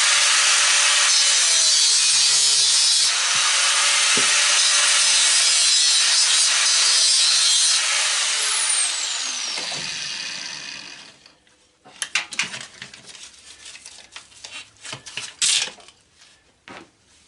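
Electric power tool running hard as it cuts into aluminum sheet, then winding down with a falling pitch once it is switched off, about eight seconds in. After that come scattered knocks and clatter as metal pieces are handled.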